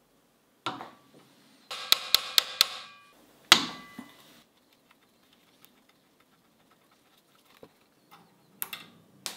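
Sharp metallic taps that ring: a flat screwdriver seated in the slot of a rust-seized screw on an antique ratchet screwdriver is struck once, then four times in quick succession, then once more hard, to shock the screw loose. A few light metal clicks follow near the end.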